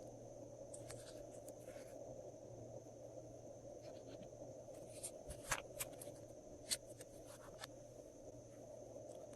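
Glossy slime being squished and mixed by hand, giving faint, scattered sticky clicks and pops, with two sharper pops a little past halfway, over a steady low hum.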